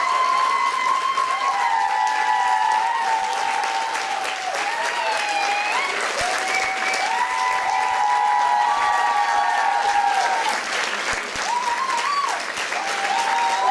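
An audience applauding steadily. A few high, held tones that step between pitches sound over the clapping.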